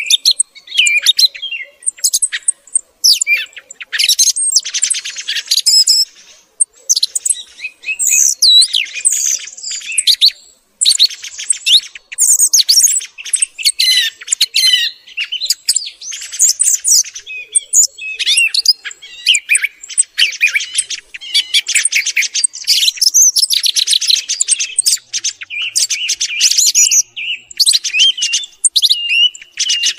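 Song thrush singing: a continuous string of varied, high-pitched phrases, many built of rapidly repeated notes, separated by short pauses.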